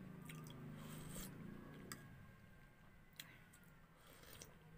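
Faint sipping of a hot drink from a metal spoon over a mug, with a few sharp small clicks of the spoon, the clearest about two seconds in.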